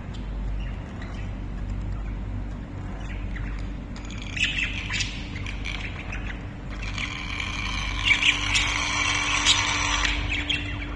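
Pet budgerigars chattering and squawking, a few scattered calls at first, becoming a dense, busy warble about seven seconds in, over a low steady hum.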